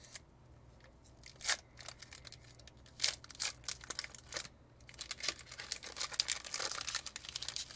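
Foil Pokémon card booster pack being torn and crinkled open by hand: a few separate sharp rips, then dense crinkling from about five seconds in.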